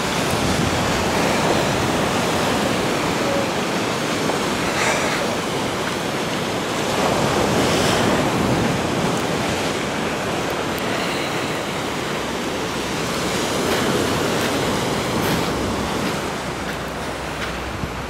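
Small sea waves breaking and washing up a sandy beach: a steady rush of surf that swells louder a couple of times.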